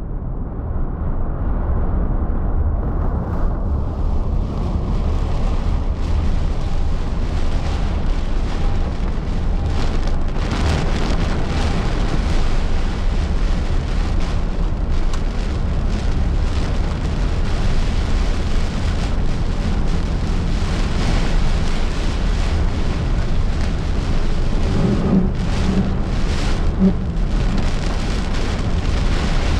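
Wind and rain in a tropical storm, heard from a moving car: a steady low rumble with a hiss of rain.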